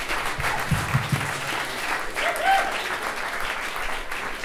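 Audience applauding in a steady clatter of hand claps, with a few brief voices calling out. A few low thumps come about a second in.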